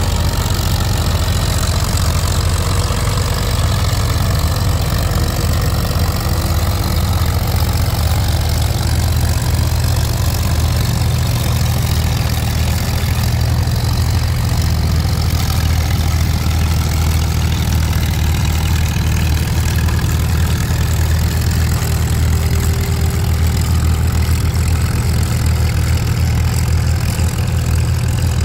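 Farmall M tractor's four-cylinder engine running hard under heavy load, pulling the sled down the track. A loud, steady engine sound with most of its weight low.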